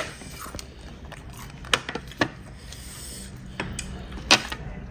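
A handful of sharp clinks and taps of tableware on steel serving dishes, the loudest near the end, over a low steady room hum.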